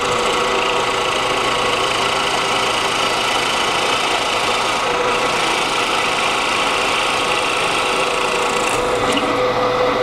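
Drill press running steadily with a Forstner bit boring into a cherry board, the motor's steady tones under the noise of the cut.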